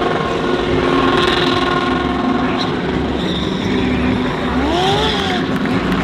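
GT3 race car engines running and revving, several engine notes at once, one sweeping up in pitch and back down about five seconds in.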